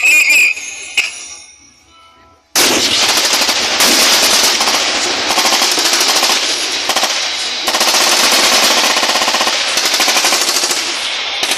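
Music fading out over the first two seconds, then, about two and a half seconds in, sudden continuous rapid gunfire from several machine guns and rifles firing at once.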